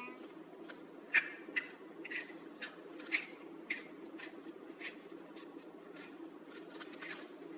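Irregular light clicks and taps, one or two a second, over a faint steady hum.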